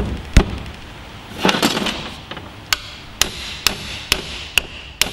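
Hammer driving a screwdriver against a rusted-in seal in the top nut of a John Deere tractor's power steering column. Two sharp metallic blows come first, then a short scrape, then a steady run of ringing blows about two a second.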